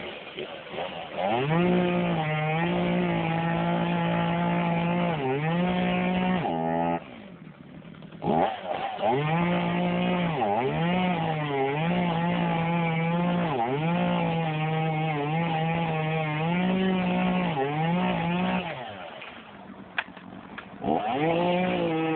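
Two-stroke chainsaw revved to full throttle cutting a tree limb, its pitch dipping again and again as it bogs in the wood. It drops to idle briefly about seven seconds in and again near the end, then revs back up.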